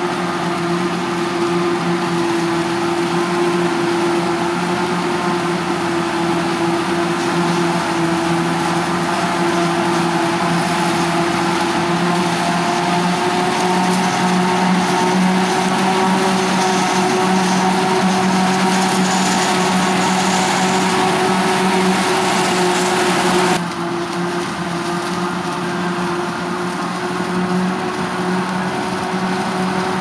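Krone BiG X 530 self-propelled forage harvester running steadily as it chops maize and blows it into a trailer, with tractor engines alongside: a steady hum and whine over a hiss. The sound drops a little and changes suddenly about three-quarters of the way through.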